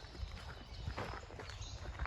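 Footsteps of a hiker walking along a woodland trail, the crunch of each step coming at a steady walking pace.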